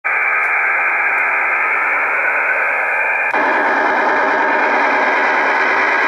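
STANAG military digital data signal on an Icom IC-R8500 shortwave receiver: a steady, dense buzzing hiss. About halfway through, the receiver switches from USB to AM and the sound abruptly turns wider and brighter.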